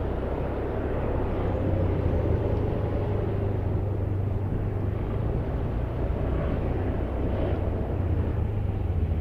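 Steady low rumble of idling vehicle engines.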